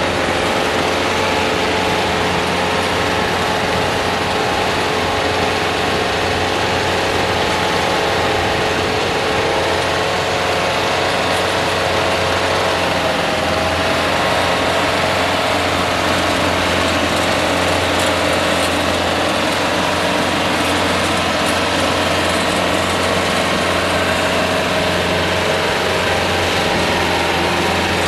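Daedong tractor's diesel engine running steadily under load, driving a rear rotary tiller through the soil.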